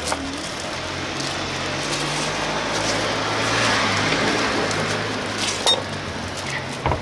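Knife slicing blood sausage on a wooden cutting board, with two sharp clinks near the end, over a steady background hiss and low hum that swells midway.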